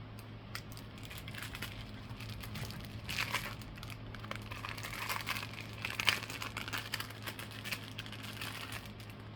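Packaging being handled and opened, crinkling and rustling in irregular bursts, with a few sharper crackles about halfway through. A faint steady low hum runs underneath.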